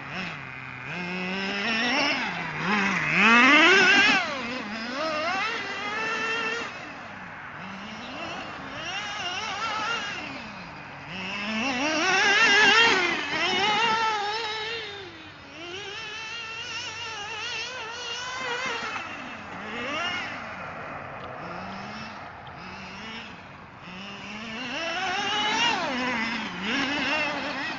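Two-stroke nitro glow engine of a 2WD radio-controlled truck revving up and down as it drives and spins, its high pitch rising and falling again and again. It is loudest about three seconds in, around twelve seconds in, and near the end.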